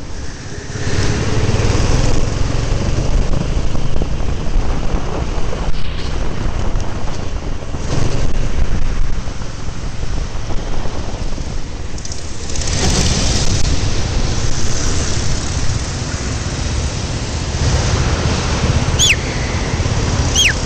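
Kart engine running as the kart laps, heard from onboard with wind buffeting the microphone; it quietens about ten seconds in and picks up again a couple of seconds later. Two brief high squeals near the end.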